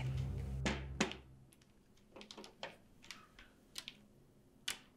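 A low hum fades out over the first second and a half, followed by about half a dozen light, scattered clicks and taps.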